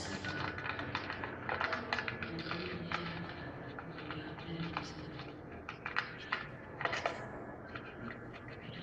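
Parrot making a quick, irregular series of small clicks and taps.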